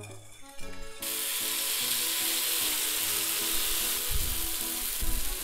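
Takoyaki batter sizzling as it is ladled into the hot, sesame-oiled wells of an Iwatani non-stick takoyaki pan. The sizzle starts suddenly about a second in and then runs on steadily, crackling.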